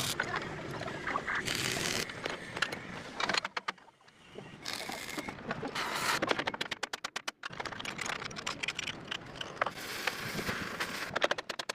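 Electric welding arc crackling in short runs, stopping briefly a few times.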